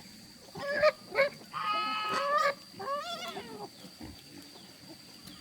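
Domestic geese honking: two short honks, then a longer held honk and a wavering one.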